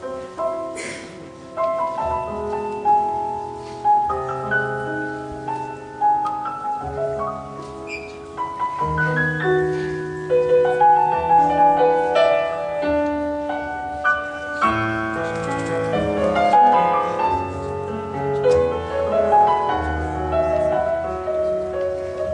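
Solo grand piano playing a classical piece: a run of melody over held chords, growing louder and fuller about ten seconds in.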